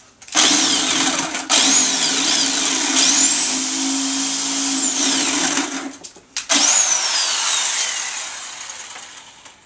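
Electric jigsaw sawing through a thick pumpkin wall, its motor whine rising and falling as the trigger is worked, then holding high and steady for a couple of seconds. It stops briefly about six seconds in, starts again, and its pitch slides down as the motor winds down near the end.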